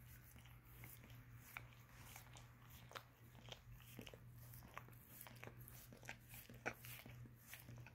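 A mixed-breed dog licking a person's bare foot and toes: faint, irregular wet smacking and lapping clicks, a few a second, with one sharper smack a little before the end.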